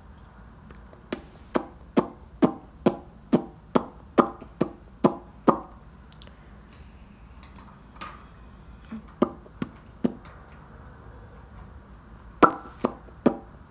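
A series of sharp taps, about two a second, each with a brief ring: a run of about eleven, then three more after a pause, then another quick run near the end.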